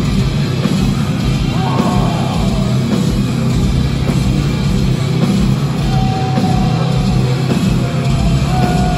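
Heavy metal band playing live at high volume, heard from inside the crowd.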